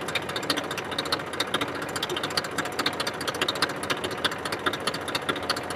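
Massey Ferguson 1035 DI tractor's three-cylinder diesel engine idling with a steady, rapid ticking clatter, while the hydraulic tipping trolley lowers.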